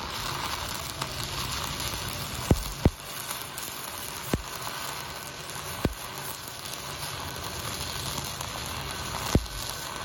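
Stick (shielded metal arc) welding arc crackling and sizzling steadily as a cap pass is run on a pipe branch connection. Five sharp pops stand out over the crackle.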